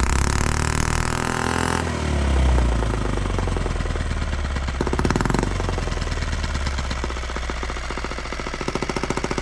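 Small single-cylinder H73 model engine running on alcohol vapour with a fast, even firing beat. Its speed is changed by hand at the throttle, rising and falling a couple of times, which shows that it answers the throttle.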